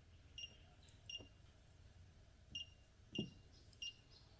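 Vendi smart lock keypad beeping as a code is keyed in: five short, high electronic beeps at uneven intervals, one per button press, with a soft knock of a press on the keypad about three seconds in.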